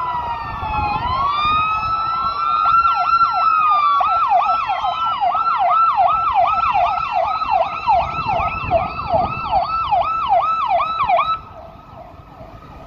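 Police car sirens: slow wails from more than one siren overlapping at first, then a fast yelp sweeping up and down about twice a second that cuts off suddenly near the end. Traffic rumbles underneath.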